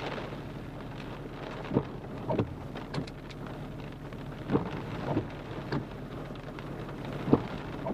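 Large raindrops striking a vehicle's windshield and roof from inside the cab, irregular sharp taps over a steady rain hiss and the low hum of the vehicle.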